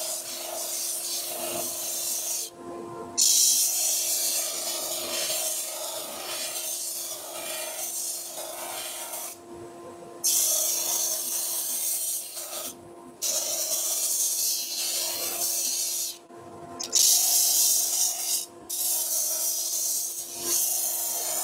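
Wooden workpiece pressed against a fairly worn abrasive disc spinning on a lathe, a steady rasping hiss as it sands the wood away. The hiss drops out briefly about five times as the piece is lifted off, coming back loudest each time it is pressed on again, over a steady low hum.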